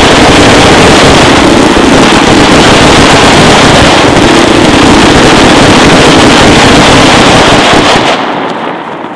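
Ground-fired fireworks going off in one loud, continuous rush with no separate bangs standing out, fading away about eight seconds in as the display burns out.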